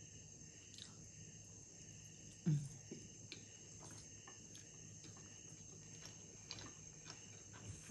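Quiet eating sounds: soft chewing and mouth clicks, with light taps of wooden chopsticks stirring noodles in a glass bowl. A short low hum comes from the eater about two and a half seconds in. A faint steady high-pitched whine sits underneath.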